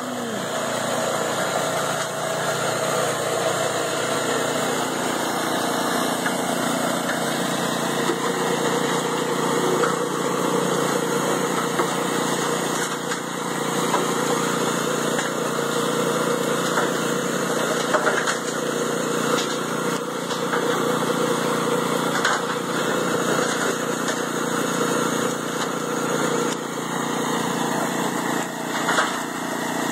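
Vintage Jaeger cement mixer running steadily: its small engine chugs while the drum turns a gravelly concrete mix, with occasional knocks as the mix tumbles.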